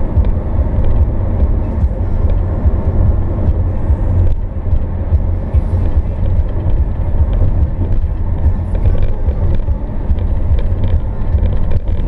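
Steady low rumble of road and engine noise heard inside a car cruising along a highway, with a few faint small ticks over it.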